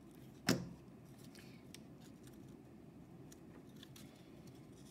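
A single sharp knock on the tabletop about half a second in, then faint light ticks and rustles of card being handled and pressed together while gluing.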